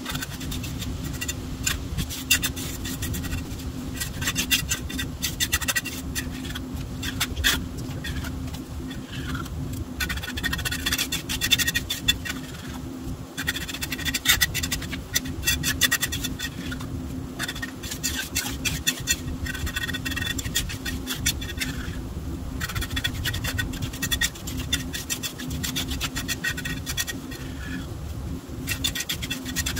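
Trowel scraping and spreading freshly poured wet concrete in a garage floor patch: repeated irregular rasping strokes with short pauses, over a steady low hum.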